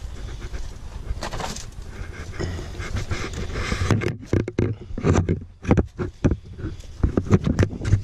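Footsteps crunching through dry leaves, an uneven run of steps through the second half.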